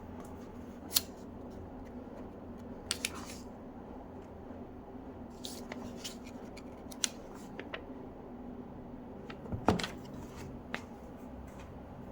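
Scattered sharp clicks and knocks of handling, one loudest about ten seconds in, over a steady low hum.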